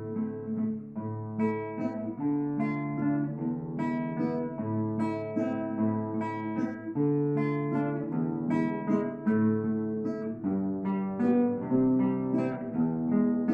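Live instrumental duet on plucked string instruments: a picked melody of quick notes over held, ringing bass notes, with no pauses.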